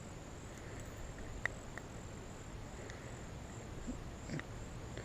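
Faint outdoor ambience: a steady high-pitched insect drone, with a faint click about a second and a half in and a few fainter ticks later.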